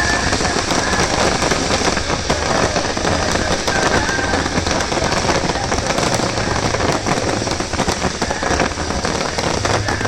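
Fireworks crackling: a dense, continuous shower of small pops that sounds like heavy rain.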